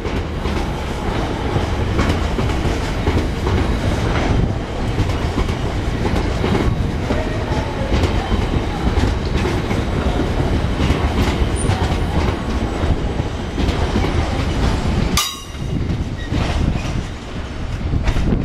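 A freight train of covered bogie hopper wagons rolling past at close range: a steady rumble with the wheels clattering over rail joints. The sound breaks off in a short dip about fifteen seconds in, then carries on.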